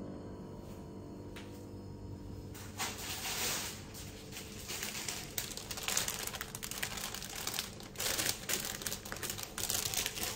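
Clear plastic bag crinkling as it is handled, a run of irregular crackles that starts about two and a half seconds in.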